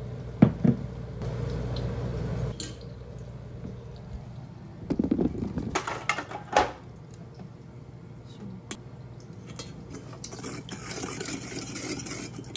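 A metal measuring spoon clinks against a stainless steel bowl as liquid is poured into the sauce. Around the middle comes more clinking and handling as a tube of paste is squeezed in. Near the end there is the steady rasp of grating on a plastic grater over the bowl.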